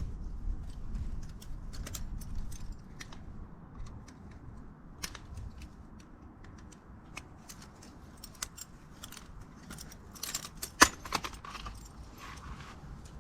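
Small metallic clicks and clinks of hand tools against a motorcycle front brake caliper as the pad retaining pin is worked loose to get the brake pads out. The clicks come scattered throughout, thickening into a quick cluster near the end with one sharp louder click.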